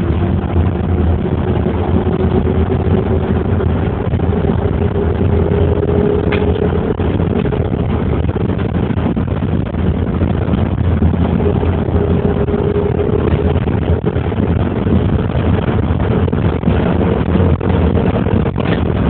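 Steady rumble of a moving road vehicle heard from inside it: engine and road noise, with a faint whine that rises slowly in pitch twice as the vehicle speeds up. A single click sounds about six seconds in.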